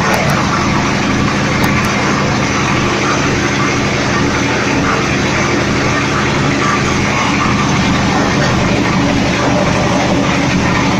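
Mustard oil expeller running steadily under load, its screw pressing mustard seed and pushing out oil cake, a continuous machine noise with a low hum.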